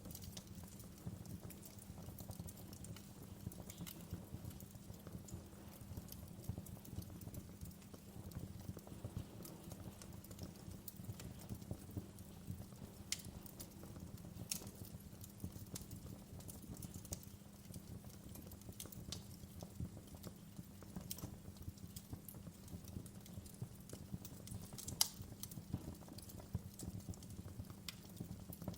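Wood fire in a fireplace crackling: logs and embers popping and snapping irregularly over a low steady rumble, with one louder pop near the end.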